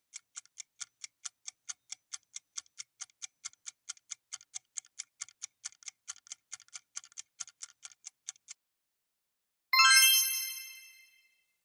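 Quiz countdown-timer sound effect: a clock ticking about four times a second, stopping about eight and a half seconds in. About a second later a bright ding with several ringing tones fades out over a second and a half, signalling the correct answer being revealed.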